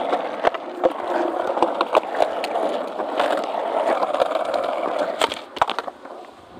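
Skateboard wheels rolling on a concrete sidewalk: a steady gritty rumble with repeated sharp clacks. Near the end come a few louder knocks as the rider falls, and then the rolling dies away.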